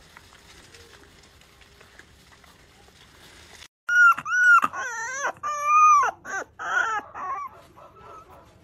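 A young pet animal gives a run of high, wavering cries that start about four seconds in. There are some half a dozen, the longest lasting over half a second, with fainter ones trailing off near the end.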